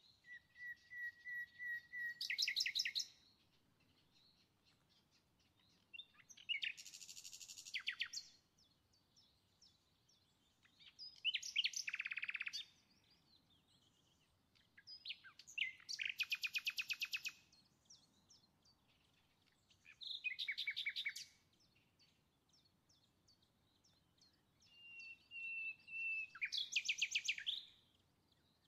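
A songbird singing in separate phrases about every four to five seconds, six in all, each a held whistle or a rapid, high trill.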